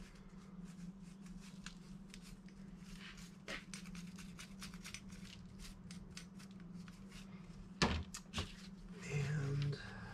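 Scattered light clicks and taps of bicycle drivetrain parts and tools being handled, with one sharper knock about eight seconds in, over a steady low hum.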